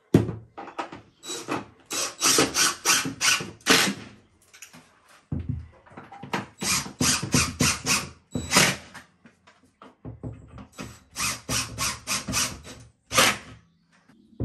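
Cordless drill driving screws through a timber batten into the wall, run in quick short bursts of the trigger. There are three runs of bursts, with short pauses about five and ten seconds in.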